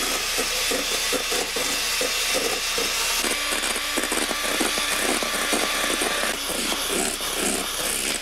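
Electric hand mixer running steadily, its beaters whipping egg whites in a stainless steel bowl up to stiff peaks.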